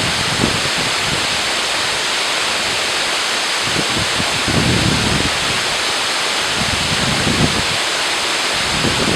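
Loud, steady rush of water, with a few low gusts of wind on the microphone.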